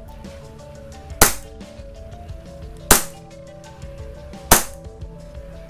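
WE G17 Type B gas blowback airsoft pistol firing three single shots, about a second and a half apart. Each is a sharp crack of the gas release with the slide cycling.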